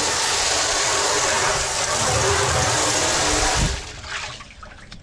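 Hard spray of water washing down an old outboard motor, a steady rushing hiss that cuts off about three and a half seconds in.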